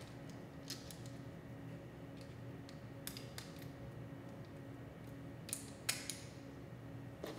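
Scattered light clicks and ticks of small brake lever guard parts handled and fitted together by hand, the sharpest about six seconds in, over a steady low hum.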